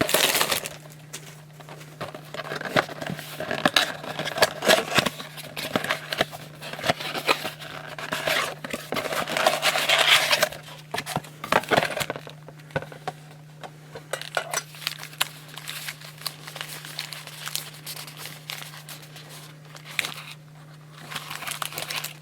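Plastic wrapping crinkling and tearing and cardboard rustling as a blaster box of trading cards is opened, with dense handling for the first half and sparser clicks and rustles after it. A steady low electrical hum runs underneath.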